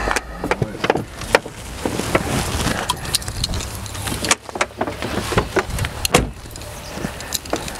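Inside a car's cabin: low engine and road rumble under many clicks, knocks and rattles from handling in the cabin. About four seconds in the rumble drops away, and a heavy thump follows about two seconds later.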